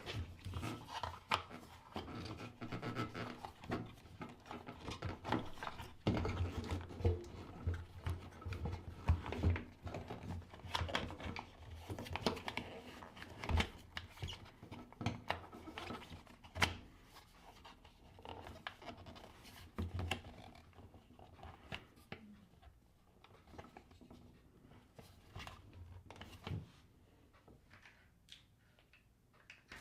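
Hands fitting a plastic washer door latch and its hood into place: scattered small clicks, scrapes and rubbing of plastic, busier at first and sparser near the end.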